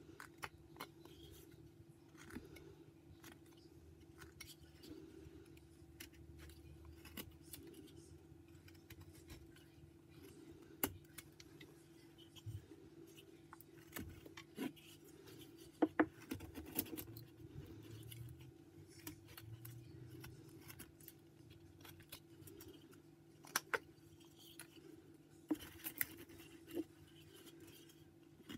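Carving knife slicing shavings from a block of white pine: a scattered series of short, crisp cuts and clicks as the blade bites and pares through the wood. A steady low hum runs beneath.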